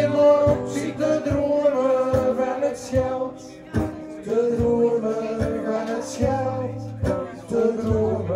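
Live acoustic band playing a chanson: acoustic guitars strumming a steady rhythm under a saxophone melody.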